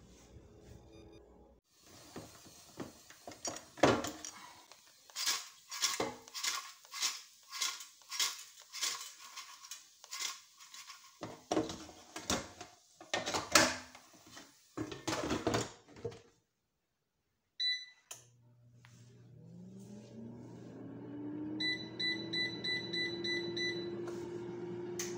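Knocks and clatter as the fries and the air fryer's plastic basket are handled. Then two short beeps, and the Black+Decker air fryer's fan starts: a whine that rises in pitch over a couple of seconds and settles into a steady hum. Near the end comes a run of quick beeps as the control panel is set.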